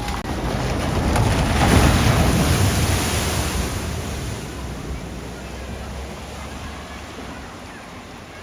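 Water splashing and surging as a vehicle drives through a flooded ford. The wash builds to its loudest about two seconds in, then dies away over the following seconds over a steady low rumble.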